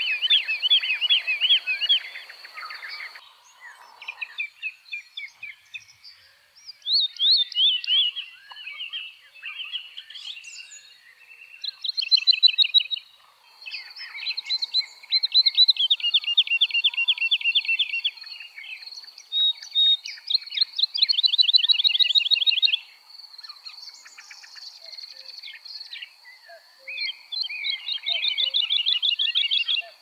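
Woodlark singing: about half a dozen phrases, each a fast run of repeated liquid notes, some sliding down in pitch, with short pauses between phrases. A faint steady high tone runs underneath.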